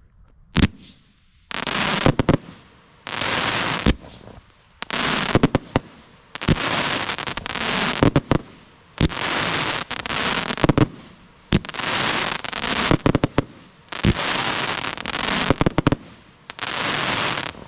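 Consumer fan-shaped firework cake (gold willow to golden rain with a golden rain mine) firing. A single sharp crack about half a second in, then about a dozen shots, each a second-long hissing rush with sharp pops, about one every second and a half.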